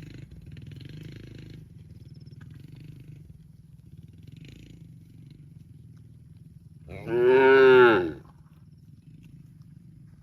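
A cow mooing once, a single call of about a second that rises and then falls in pitch, about seven seconds in, over a low steady rumble.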